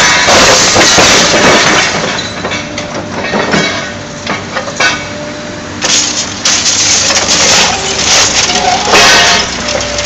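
Liebherr 944 demolition excavator breaking down a wall: rubble and metal crashing and crunching, with many sharp cracks and clatters. It is very loud for the first two seconds, eases off, then swells again about six seconds in.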